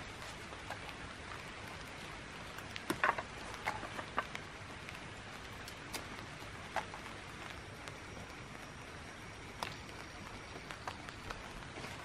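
Scattered light snaps and rustles of shrub stems, leaves and berries being picked by hand, over a steady background hiss. The loudest cluster of quick snaps comes about three seconds in.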